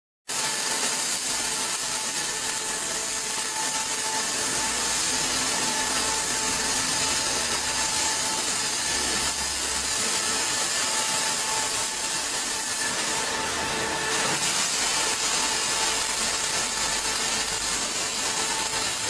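Welding arc of an automatic four-axis welding machine running continuously on a steel excavator bucket: a steady, loud hiss with faint steady tones underneath.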